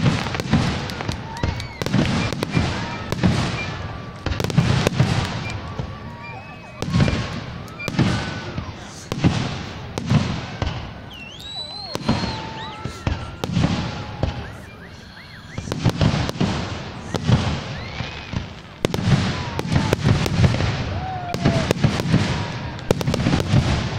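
Aerial firework shells bursting in quick succession during a fireworks display, a dense run of booms and sharp cracks with short lulls in between.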